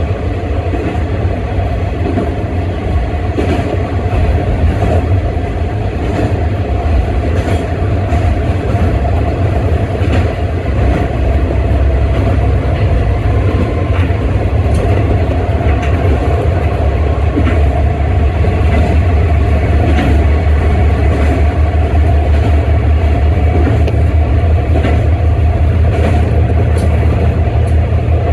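Kanto Railway 2300 series diesel railcar under way, heard from the driver's cab: a steady low engine drone with scattered clicks of the wheels over the rail. It grows slightly louder about halfway through.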